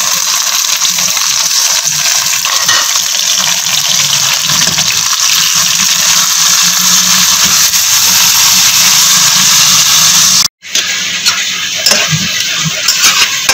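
Raw minced meat sizzling in hot oil with fried onions in a steel pot, a loud steady frying hiss. About ten and a half seconds in it cuts off abruptly, then comes back as somewhat weaker sizzling with a few sharp clicks of a spatula against the pot.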